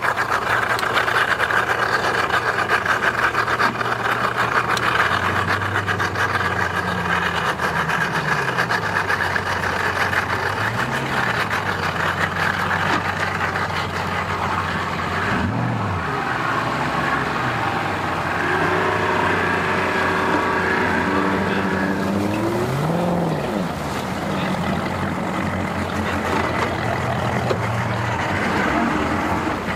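Outboard motors on bass boats running at low speed, a steady engine drone with a few brief revs that rise and fall in pitch.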